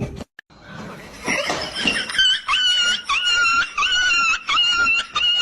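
An animal giving a rapid run of short, high-pitched calls, about two a second, each held at a nearly steady pitch.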